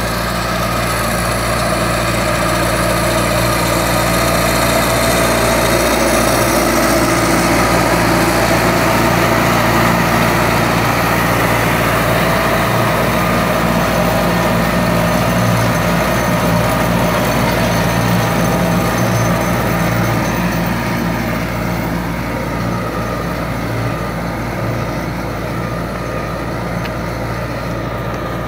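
Preet 7549 tractor's diesel engine running steadily under load as it pulls a mounted mouldboard plough through the soil. It is a little quieter in the last several seconds.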